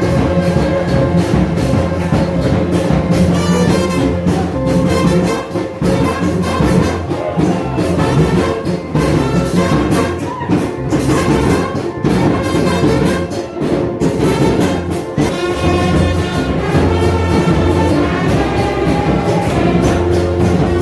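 Brass band music, with trumpet and trombone-like horns playing sustained melodic lines.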